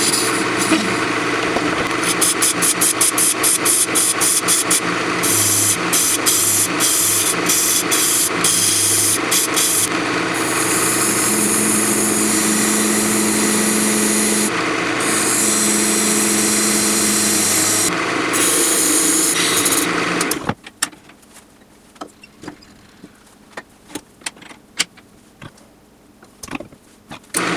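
Wood lathe spinning an apple wood blank while a hand-held turning tool cuts into it: a steady machine hum with scraping and rapid chattering ticks. About twenty seconds in it cuts off suddenly, leaving scattered light clicks and knocks.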